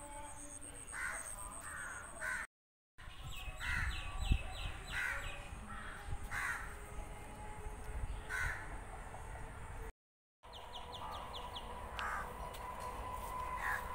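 Crows cawing, single harsh caws every second or two, with two quick runs of high chirps from a smaller bird. There is a dull bump about four seconds in, and the sound cuts out twice for about half a second.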